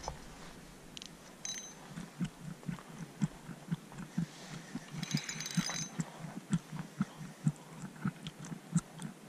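Spinning reel being cranked to retrieve a cast lure, its gears giving a soft, even pulse about three times a second.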